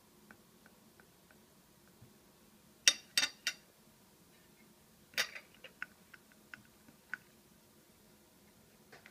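Metal tweezers clicking and clinking against a ceramic plate: faint light ticks at first, three sharp clicks in quick succession about three seconds in, then another sharp click a couple of seconds later followed by several lighter ticks.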